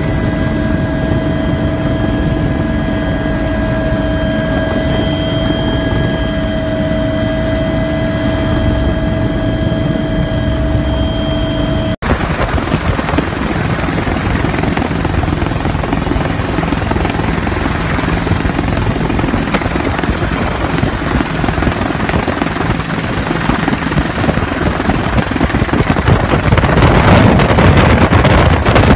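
Helicopter in flight: steady engine and rotor noise with a steady whine for the first twelve seconds. After a brief cut, a rougher rushing noise follows and grows louder near the end.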